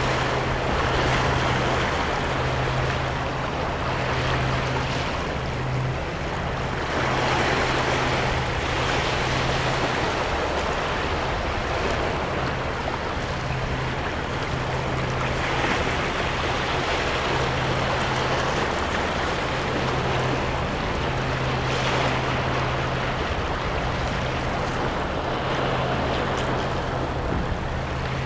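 Small ocean waves washing in over seaweed-covered shore rocks, the surf swelling every several seconds. A low steady hum comes and goes underneath.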